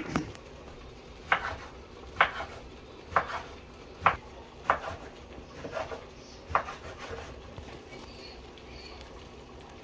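Kitchen knife chopping through vegetables onto a cutting board. There are about eight separate sharp knocks at an uneven pace, and they stop about two-thirds of the way through.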